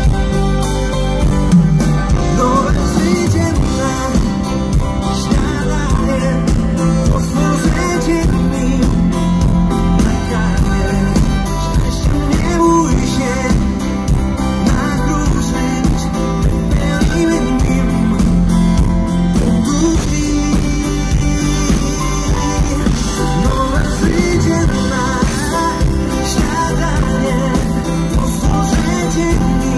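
Live pop-rock band playing loudly with a singer, heard from the crowd at an outdoor stage.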